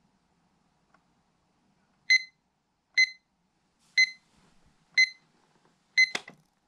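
Digital alarm clock beeping: a short high beep once a second, five times, starting about two seconds in, then a sharp click as the beeping stops near the end.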